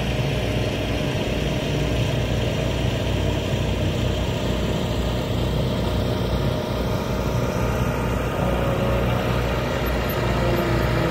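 An engine running steadily with a low, pulsing hum, and a faint tone rising in pitch near the end.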